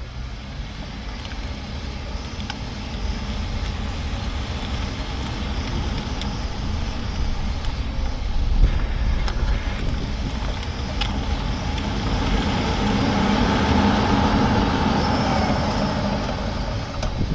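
Polestar 2 electric car on the move: steady road and tyre noise that swells near the end, with scattered short clicks and rattles, the unexplained rattling the owner is asking about.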